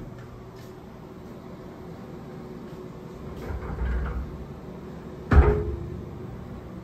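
Frameless glass sliding shower door rolling along its barn-door track, its rollers running on the bar for about a second, then the door coming to a stop with a sharp clunk a little after five seconds in, followed by a short ring.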